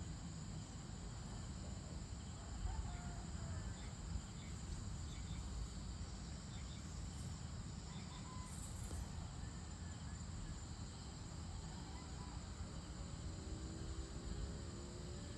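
Dusk ambience of a steady, high-pitched insect chorus, crickets among them, over a constant low rumble. Near the end a faint drawn-out pitched sound comes in.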